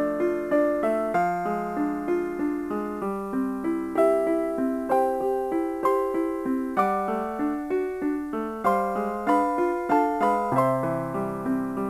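Background piano music: a melody of evenly paced keyboard notes.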